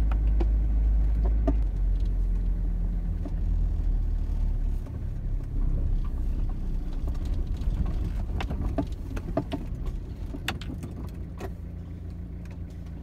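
A van driving on beach sand, heard from inside the cab: a steady engine and a low road rumble, with scattered clicks and rattles from the cab. The deepest rumble eases off about five seconds in, and the whole sound slowly gets quieter.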